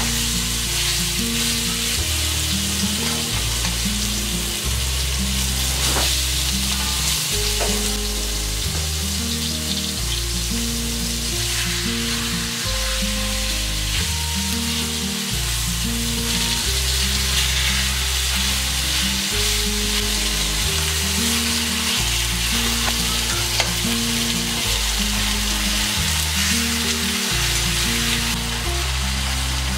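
Food frying and sizzling in a red enamelled braiser on a lit gas burner, stirred and turned with a slotted spoon, with a few light clicks of the spoon against the pan. A slow bass line of background music plays underneath.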